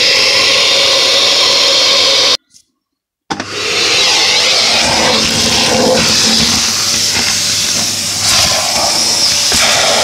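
Kärcher T 10/1 commercial vacuum cleaner running, its hose sucking ash and grit from a log-burning stove's grate. The sound cuts out completely for about a second a little over two seconds in, then comes back, changing as the nozzle moves around.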